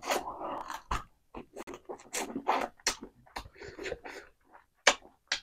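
Close-miked eating of cooked rooster chicken held by hand: biting and chewing, with wet mouth sounds and sharp clicks in an irregular run, loudest about a second in and just before the end.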